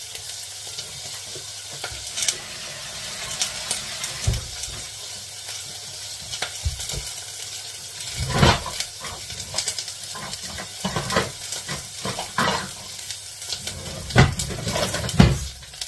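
Diced onion sizzling steadily in hot oil in a pot, with a few scattered knocks and clinks of kitchenware, the loudest about halfway through.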